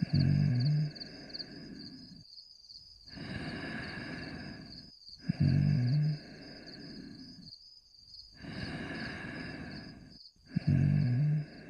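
A cartoon dog snoring in its sleep: three loud, low snores about five seconds apart, each followed by softer breathing. A steady high pulsing chirp runs underneath.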